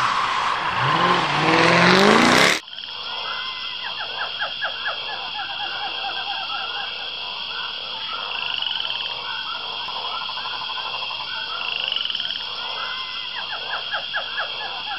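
A loud rushing noise for about the first two and a half seconds, cutting off abruptly. Then frogs calling in repeated bouts of fast pulsed croaks, over a steady high buzz.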